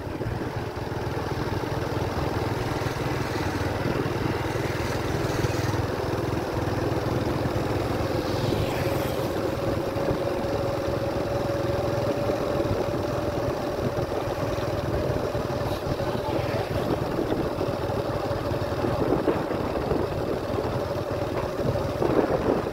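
A small vehicle's engine running steadily while travelling along a road, over an even rushing noise, with a steady humming tone that rises slightly in pitch partway through.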